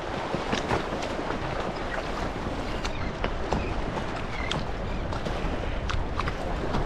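Wind buffeting the microphone over water lapping and splashing against a kayak, with many short sharp splashes scattered throughout as a school of feeding red drum break the surface around the boat.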